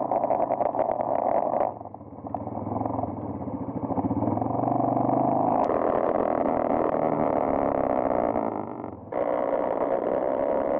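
Engine of a Sharmax ATV 250 quad running under throttle while it is ridden, heard muffled and dull from a camera mounted on the quad. The note changes abruptly about two seconds in and again near the end, where separate clips are joined, with the pitch rising and falling in between.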